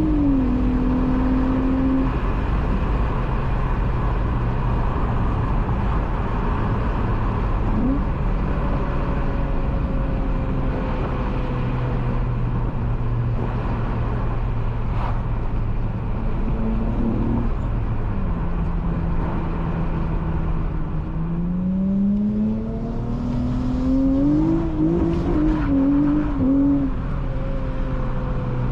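Honda J32A3 V6 in a manual Accord coupe, running through a Skunk2 Megapower single-exit exhaust while driving. The engine note drops with a gear change at the start and holds steady at cruise. About two-thirds of the way in the revs climb under acceleration, then fall away with another shift near the end.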